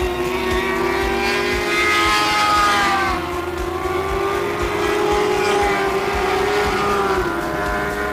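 Several lightning sprint cars racing at high revs. Their engine pitches overlap and rise and fall as the cars pass, loudest about two to three seconds in.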